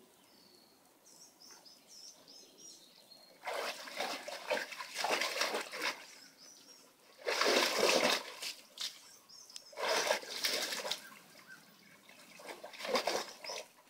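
Portuguese water dog splashing in a shallow plastic wading pool. The splashing comes in four bouts, the first about three and a half seconds in, with quieter pauses between them.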